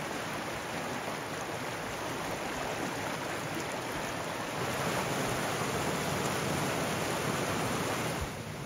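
Shallow spring-fed stream flowing steadily over rocks, a little louder from about halfway.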